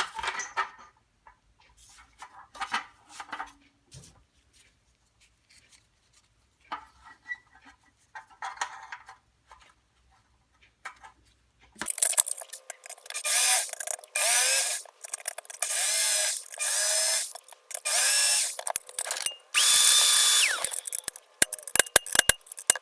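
Power drill drilling out the rivets of a metal toolbox in a series of short, loud bursts, its motor pitch rising and falling, starting about halfway in. Before that, only faint scattered clicks and taps.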